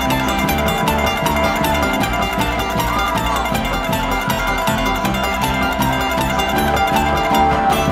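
Bluegrass band playing an instrumental passage with no singing: acoustic guitar, banjo and mandolin plucking over an upright bass keeping a steady pulse.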